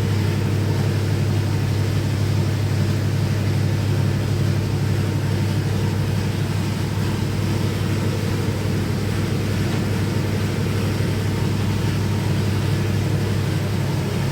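A steady, unchanging machine hum, low and even, with no break or change in pitch.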